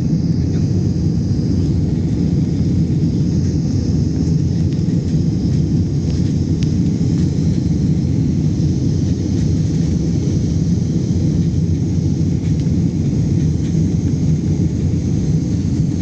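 Jet airliner cabin noise heard from a window seat in flight: a steady, even rumble of the engines and rushing air, with a faint hiss above it.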